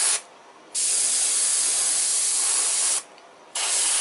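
Airbrush spraying paint: a steady hiss of air and paint that stops twice for about half a second, shortly after the start and about three seconds in, then starts again.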